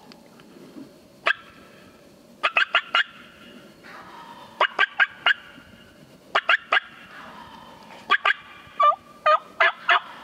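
Wild turkey gobbler gobbling repeatedly, about six loud rattling bursts each a few notes long and a second or two apart. The last burst, near the end, is lower and rounder in pitch.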